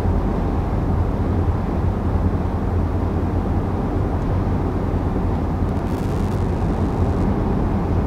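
Steady in-cabin noise of a 2020 Volkswagen Tiguan cruising at about 50 mph: a low road and wind rumble with its 2-litre turbo four-cylinder engine underneath. It measures around 59 decibels on a sound meter.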